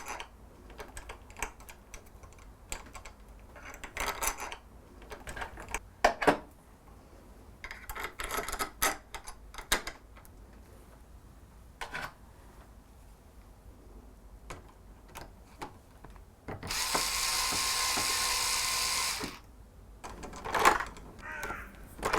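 Small metal clicks and rattles of screws and door-handle parts being handled, then, about 17 seconds in, a power screwdriver runs steadily for about two and a half seconds.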